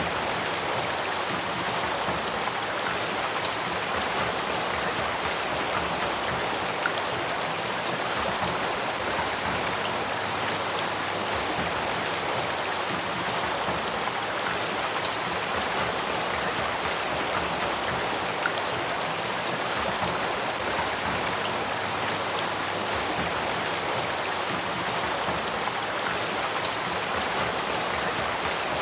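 Spring-fed headwater stream flowing: a steady, even rush of running water.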